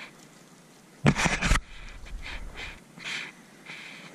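A spinning rod being cast: a short whoosh about a second in, lasting about half a second, followed by a few soft, brief swishing sounds.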